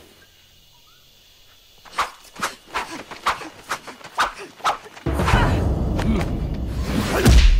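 Film fight sound effects: after a quiet start, a quick run of sharp hits and swishes from about two seconds in, as the two sparring fighters' blows land. About five seconds in, loud music with a heavy bass starts suddenly and carries on.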